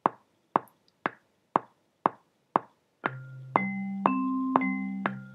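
GarageBand's metronome clicking at 120 beats a minute, two clicks a second. About three seconds in, a vibraphone software instrument played from a MIDI keyboard joins with a short pattern of sustained notes in time with the click.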